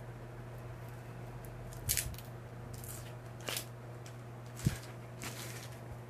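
Packaging and cards being handled: four or five short rustles and scrapes, over a steady low hum.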